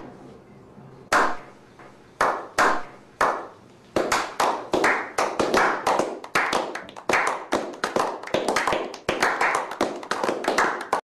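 A slow clap. At first there are widely spaced single claps from one person. About four seconds in, several others join, and the claps come quicker and overlap. The clapping stops suddenly near the end.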